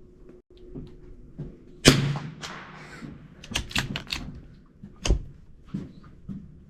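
A single rifle shot about two seconds in, dying away over about a second, followed by a run of sharp metallic clicks and knocks from handling the rifle, and a dull thud a few seconds in.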